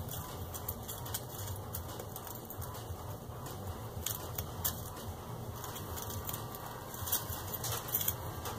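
Faint crackling and scratching of a dried owl pellet being pulled apart by hand and with tweezers. Scattered small clicks, busier near the end, over a steady low hum.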